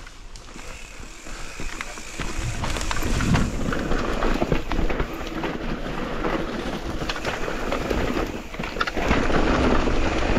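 Electric mountain bike riding down a dirt trail: wind rushing over the microphone, tyres rolling over dirt, and the bike rattling with many small clicks and knocks. It gets louder about two seconds in and again near the end.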